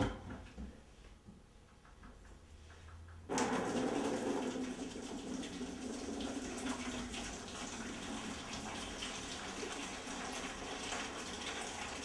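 A brief knock, then about three seconds in hot water starts pouring from a stainless steel sphere into a plastic bucket and keeps pouring steadily.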